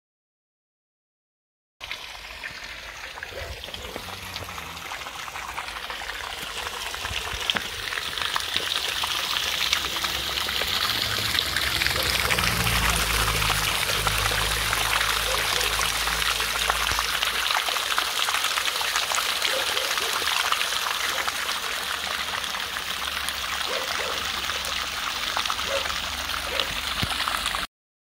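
Water running steadily from the stone fountain's spouts and splashing into its troughs, a continuous hiss that starts about two seconds in and grows louder over the next several seconds. It cuts off suddenly near the end.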